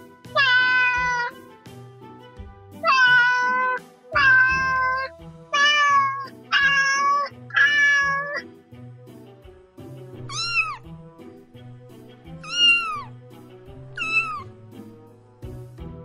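Domestic cat meowing over background music: six drawn-out meows in quick succession in the first half, then three shorter, higher meows that rise and fall in pitch.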